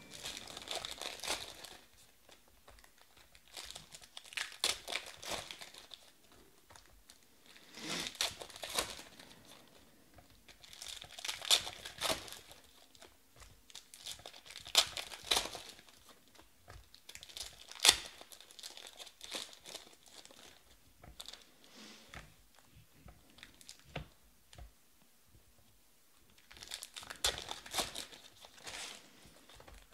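Foil wrappers of 2020 Panini Select Baseball card packs crinkling and tearing open, in short bursts every few seconds, with quieter stretches of cards being handled between them.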